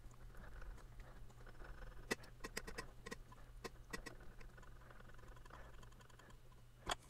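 Faint metal-on-metal scraping of an aluminium boss being twisted by hand onto a tight-fitting aluminium stop bolt, with a scatter of light clicks and one sharper click near the end. The bolt is binding near the bottom of the boss's hole. A steady low hum runs underneath.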